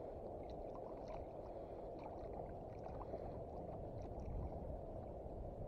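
Gentle water lapping and gurgling against the hull of a kayak sitting on calm sea, with faint small drips and splashes scattered through.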